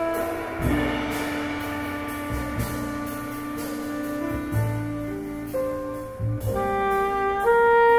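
Live jazz quartet of alto saxophone, piano, double bass and drums playing. The alto saxophone holds long notes over the rhythm section and cymbals, then climbs through a run of rising notes near the end.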